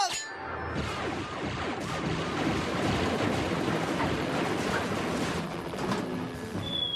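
Cartoon sound effect of sustained rapid gunfire, a continuous dense clatter, with a thin high whistle that falls slightly near the end.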